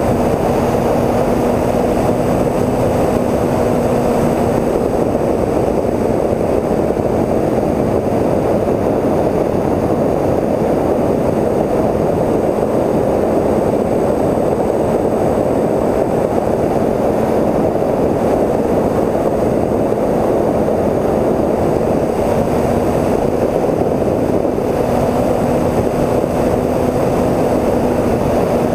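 Sound from the camera on board a Twinstar 2, a twin-motor electric RC plane, in flight: a constant rush of wind over the microphone with the motors' steady hum under it. The hum fades about five seconds in and comes back near the end.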